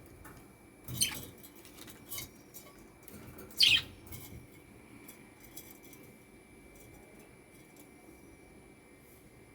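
Pet lovebirds calling: two short, sharp chirps, the second one loudest and falling in pitch, with a few faint clicks between them.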